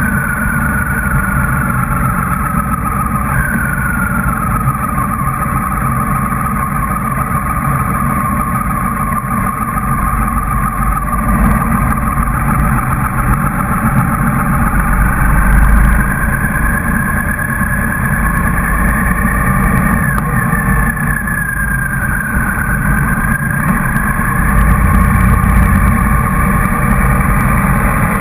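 Motorcycle engine running as the bike rides along in a slow convoy, with a dense low rumble of engine and wind noise on the microphone. A thin whistle rides over it, slowly sliding up and down in pitch.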